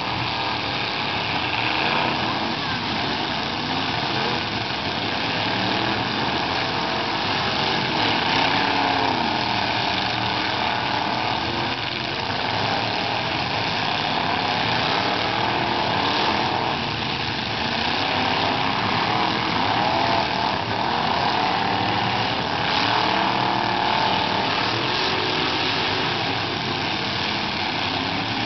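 Many demolition derby pickup truck engines running and revving at once, their pitches rising and falling over each other, with a few bangs of trucks ramming each other.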